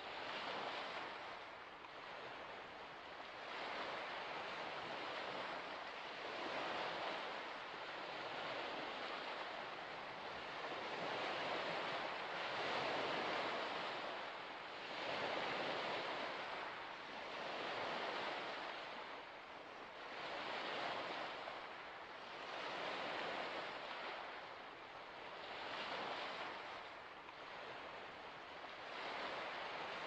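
Small waves washing onto a shore, the rush of water swelling and fading about every two to three seconds.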